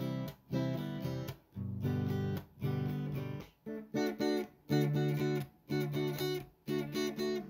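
Background music: acoustic guitar strumming chords in a steady rhythm, each chord stopped short before the next.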